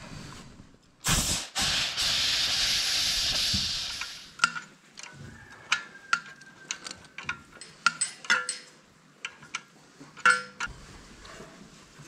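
A sharp knock about a second in, then a hiss for about three seconds, then a run of small metal clinks and taps as the parts of a livestock water cup valve are fitted by hand, with someone working to get a pin in.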